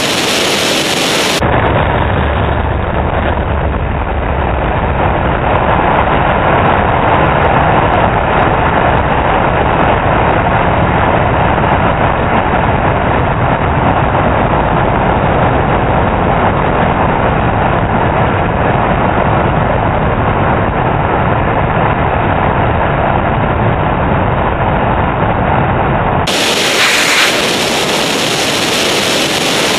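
Honda CBR954RR sportbike at highway speed: a steady rush of wind on the helmet-mounted microphone over the inline-four engine. About a second and a half in, the sound turns duller and deeper, and it turns bright again near the end.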